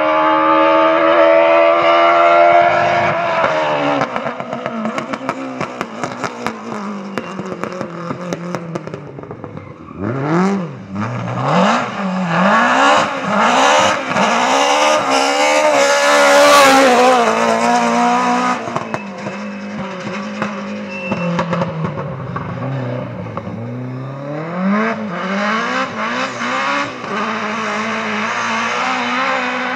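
BMW E30 M3 rally cars driven hard on a stage: the engine holds high revs, then drops, and through the middle swings rapidly up and down through gear changes and corners with crackles on the lift-off. Tyre and gravel noise joins as a car passes close, loudest about two thirds of the way through.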